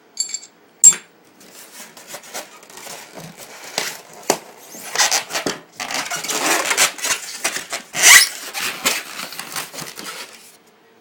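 Unboxing sounds as the packaging and a hard plastic airsoft gun are handled: a few sharp clicks and knocks, the loudest just under a second in, then several seconds of rustling and crinkling that fades out near the end.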